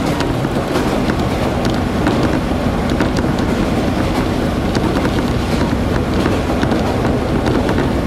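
Steady running noise inside a KiHa 40-series diesel railcar under way: the diesel engine's low drone and wheels on the rails, with many small clicks and rattles scattered through it.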